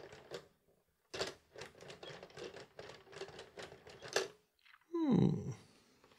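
Uneven run of light plastic clicks from the hand crank of a LEGO NES television set being turned to scroll its Mario screen. About five seconds in, a louder synthesized whoosh sweeps down in pitch and fades.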